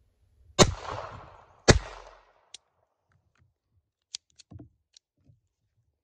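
.22 pistol fired twice, about a second apart, each shot trailing off in an echo, followed by a few faint clicks.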